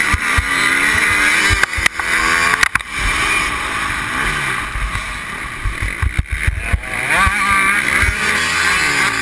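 Motocross bike engine revving up and down as it is ridden hard over the track, heard close from an onboard camera. Wind rumbles on the microphone, and there are a few sharp knocks.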